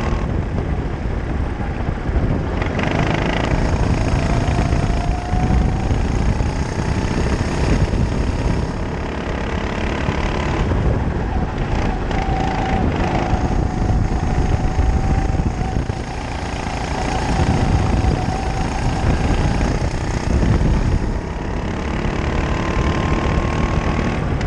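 Racing kart's engine, heard from onboard, revving up and down as the kart laps the track, under a heavy rumble of wind on the microphone.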